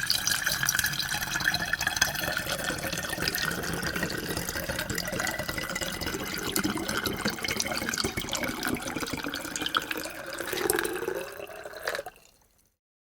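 Water pouring steadily into a glass, with constant splashing and gurgling as the glass fills. Near the end the pitch rises briefly, and then the flow stops suddenly.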